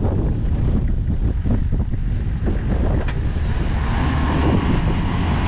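Wind buffeting the microphone over the engines of off-road 4x4s during a sand recovery: a Toyota Land Cruiser tows a stuck Land Cruiser Prado on a strap, and the engine note rises about three and a half seconds in as the strap pulls taut.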